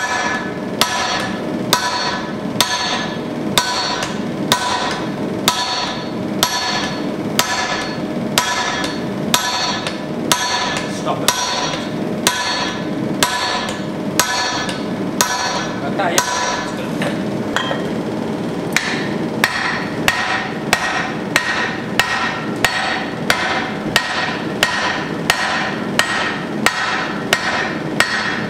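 Hand hammer forging a red-hot steel axe head on an anvil: steady, evenly spaced blows, about four every three seconds, each one ringing. In the second half a steady ringing tone carries on between the blows.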